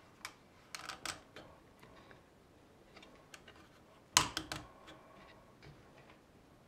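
Light clicks and taps of a clear acrylic routing template and a small wooden block being handled and set in place, with a sharper cluster of knocks about four seconds in.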